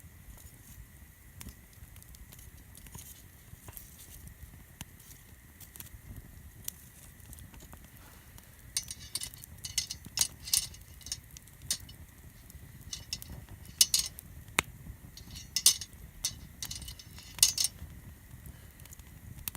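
Campfire crackling, with bursts of sharp pops and snaps through the second half over a low steady rumble.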